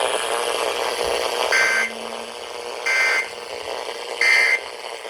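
Emergency Alert System end-of-message signal on a NOAA Weather Radio broadcast: three short, identical two-tone data bursts about 1.4 s apart over steady radio hiss, marking the end of the severe thunderstorm warning message.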